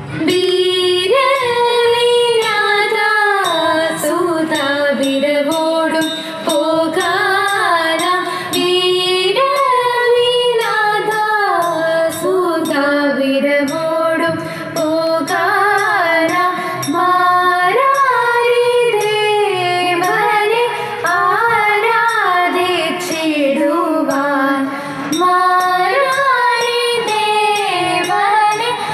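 A woman's voice singing a Thiruvathira song in Carnatic style, one melodic line with gliding, held notes, over a light beat keeping time.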